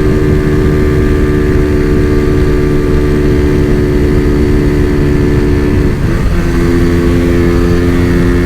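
Kitted Honda CG Fan 125 single-cylinder engine running flat out at a steady high pitch, topped out at its gearing limit, with heavy wind rumble on the microphone. About six seconds in the engine note dips briefly, then settles at a slightly lower steady pitch.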